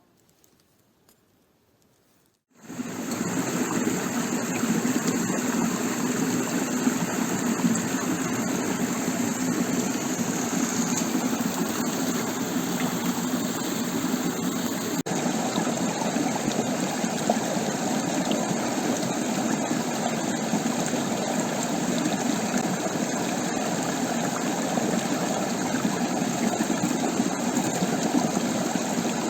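Near silence, then suddenly, about two and a half seconds in, the steady rush of a stream's flowing water.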